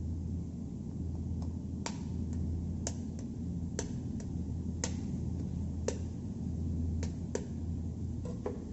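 Sharp, short clicks or taps, roughly one a second, over a steady low hum.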